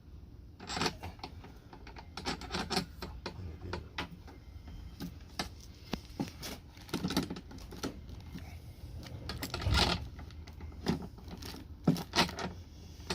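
Irregular clicks, taps and light rattles of a lawn mower's handle parts and wing-nut hardware being handled and fitted together.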